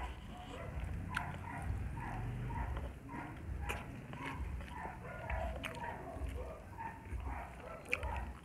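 Close-up chewing and lip-smacking of pork and rice eaten by hand, in a steady chewing rhythm with a few sharp mouth clicks.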